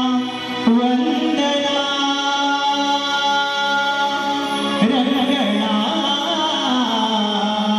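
A male folk singer sings a Marathi stavan, a devotional invocation, in the Konkan Shakti-Tura style. He holds long sustained notes and slides through a run of ornamented notes about five seconds in.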